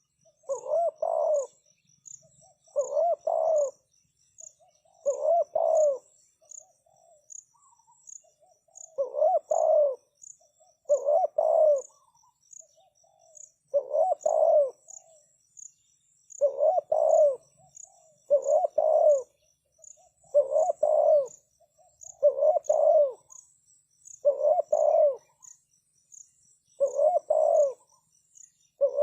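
Spotted dove cooing, a short phrase repeated about every two seconds, the kind of call used to lure doves. A faint, high insect chirping pulses steadily behind it.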